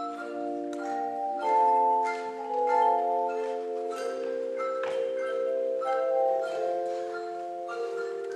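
Handbell choir playing a piece: several bells sound together in chords, each note ringing on and overlapping as new ones are struck.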